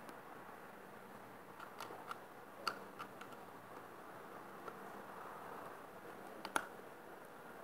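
Light metallic clicks and taps of a spanner working on a metal part, over a steady low hiss. Two sharper clicks stand out, about four seconds apart.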